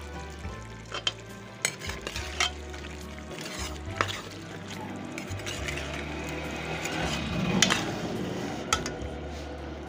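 A spoon stirs potatoes and cauliflower frying in oily masala in a metal pot, with a steady sizzle. The spoon knocks and scrapes against the pot several times, loudest near the end.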